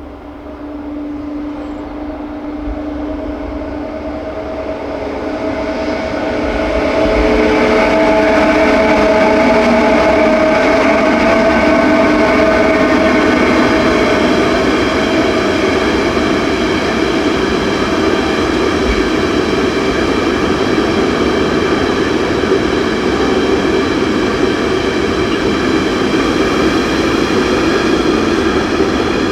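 Loaded ore train hauled by two DB Class 152 electric locomotives passing, their cooling blowers giving the steady, vacuum-cleaner-like whine the class is nicknamed for. It grows louder over the first seven seconds, then stays loud.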